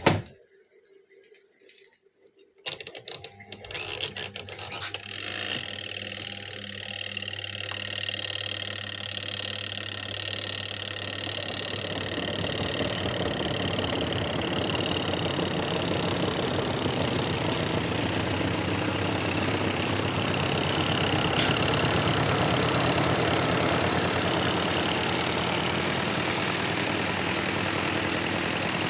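A click, then about three seconds in a Haier Thermocool washing machine starts running: a steady motor hum that builds over the first ten seconds or so and then holds steady.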